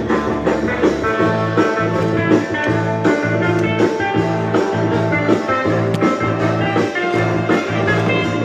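Background music: an upbeat guitar-led tune with a steady beat and a bass line.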